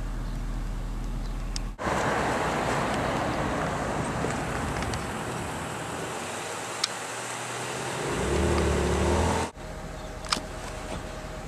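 Road traffic noise: a steady rush of passing cars, with one vehicle's engine growing louder as it passes close near the end, then cut off abruptly. A quieter steady background follows.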